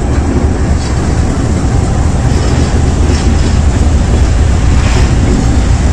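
RGE-20 diesel-electric locomotive's engine running at a low notch as the locomotive reverses slowly: a steady, loud low rumble heard from on board, with a few faint clicks.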